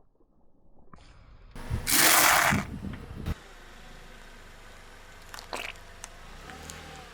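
An object crushed under a car tyre: a loud crunching burst lasting about a second, starting about a second and a half in, a shorter crack about a second later, then a steady low hum.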